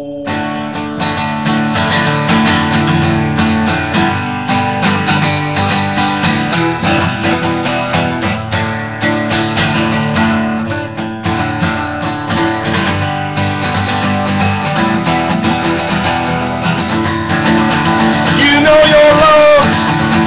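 Acoustic guitar music, strummed and plucked chords that set in abruptly and play on steadily.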